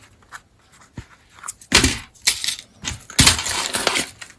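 Handling noise: a few short clicks, then three rough rustling, clattering bursts from about two seconds in, the last lasting about a second.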